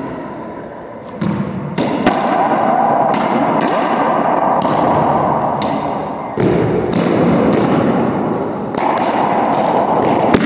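Racquetball rally: the rubber ball cracking off racquets and the court walls in a quick run of sharp hits, roughly two a second from about a second in, each ringing out in the hard-walled court's echo.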